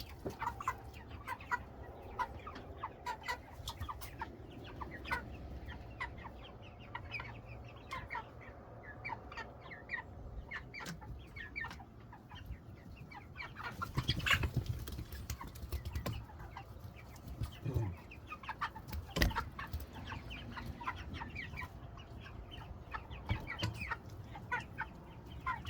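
A flock of meat chickens (broilers) clucking and peeping continuously, with a few sharp knocks in the middle.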